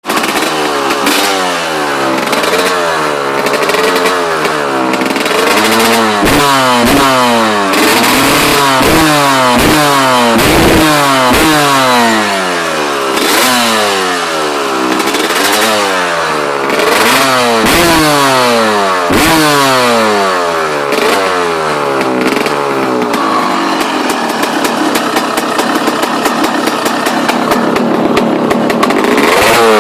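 Honda CR250 two-stroke single-cylinder engine with an FMF Fatty expansion-chamber exhaust, revved over and over, its pitch climbing and falling with each throttle blip. For a few seconds near the end it holds a higher, steadier note, then turns to a crackly, spitting run.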